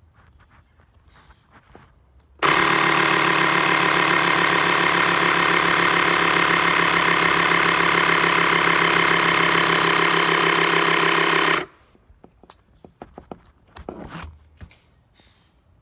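Small electric air compressor running with a loud, steady buzz for about nine seconds, switching on abruptly a couple of seconds in and cutting off suddenly. Faint handling knocks follow.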